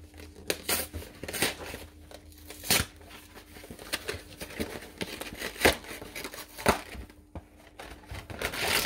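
Snack packaging crinkling and tearing as it is opened, in irregular sharp crackles and rustles with several louder snaps.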